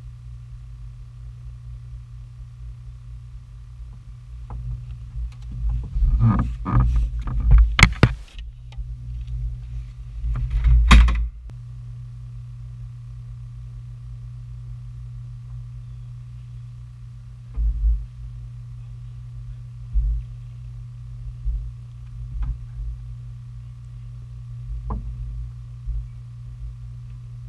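Steady low hum of a fishing boat's electric trolling motor. Over it comes a loud burst of knocking and rattling from about five to eight seconds in, another around eleven seconds, and a few single knocks later, from fishing rods and gear being handled in the boat.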